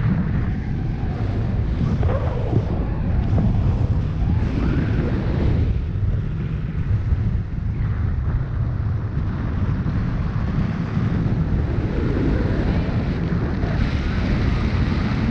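Wind buffeting an action camera's microphone during a tandem paragliding flight: a steady low rumble of airflow.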